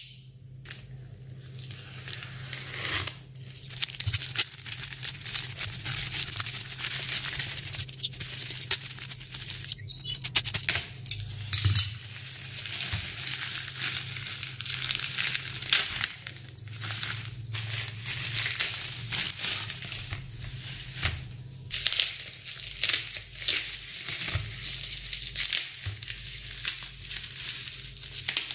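Packaging being unwrapped and handled by hand: continuous crinkling and rustling with many short sharp crackles, over a steady low hum.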